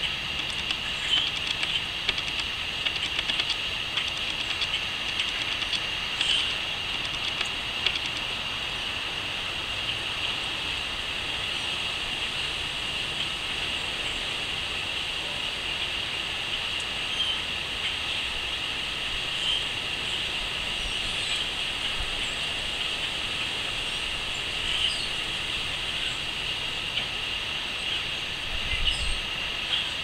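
Crickets trilling steadily in one high, even band, with short bird chirps scattered over it now and then.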